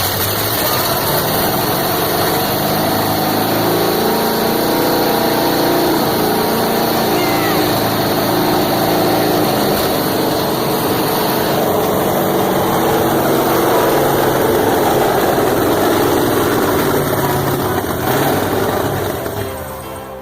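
An engine running steadily at a constant speed, fading out over the last second or two.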